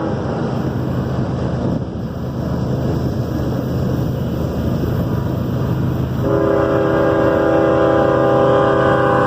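CSX train passing with a steady heavy rumble, then its locomotive's air horn sounding one long multi-note blast that starts about six seconds in and lasts about three seconds.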